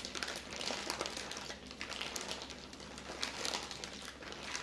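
Plastic zip-top bag crinkling in irregular bursts as chicken tenders in marinade are squeezed and worked through it by hand.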